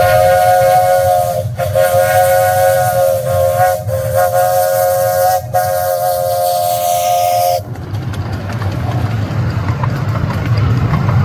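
A Cagney miniature steam locomotive's whistle sounding a chord of several tones, held for about seven and a half seconds with three very short breaks, then cut off. A low rumble runs underneath and carries on after the whistle stops.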